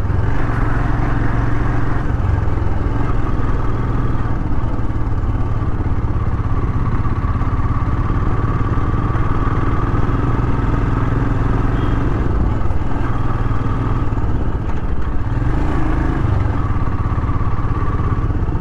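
Motorcycle engine running steadily under way, heard from the rider's own bike.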